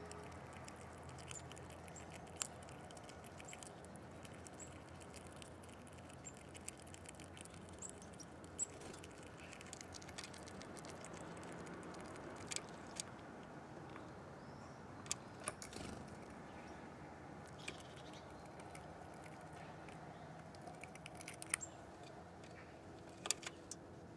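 Faint, irregular light taps, clicks and scratches of small animals handling food and pecking at a window-sill feeding spot, with a few faint bird chirps.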